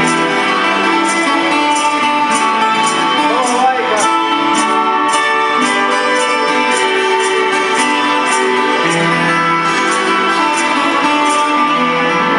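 A double-necked, many-stringed plucked lute played solo: a steady pulse of plucked notes over long-ringing strings, the instrument one the player built himself.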